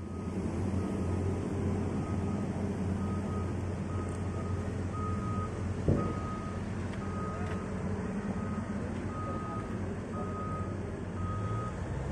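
Heavy open-pit mining machinery running with a steady low hum, while a warning beeper sounds a short repeating beep about one and a half times a second. A single sharp knock about six seconds in.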